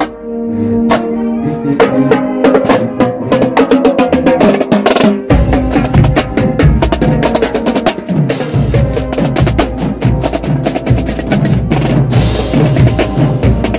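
Marching band drumline playing: snare drums in quick rolls and strokes with bass drums, joined at first by held brass notes. About five seconds in the drums take over with heavy bass drum hits, and cymbals crash near the end.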